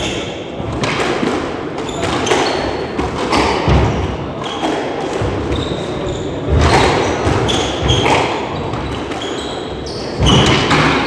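Squash rally: the ball cracks off rackets and the walls in irregular knocks, with court shoes squeaking on the wooden floor between the shots.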